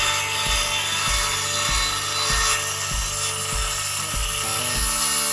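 Craftsman 20V cordless circular saw cutting through a pine board, the blade running steadily under load and stopping abruptly near the end as the trigger is let go. Background music with a steady beat plays faintly underneath.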